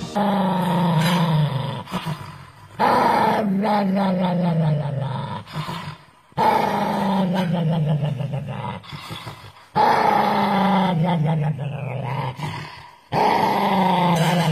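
A small dog growling in five long, drawn-out growls in a row. Each lasts about three seconds and sinks in pitch, with short pauses between them.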